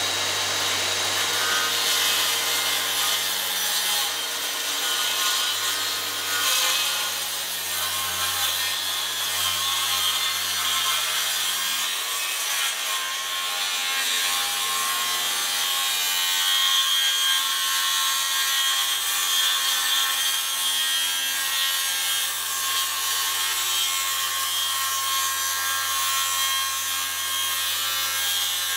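DeWalt 60V cordless circular saw cutting a straight line through a countertop, its blade running steadily under load for the whole stretch.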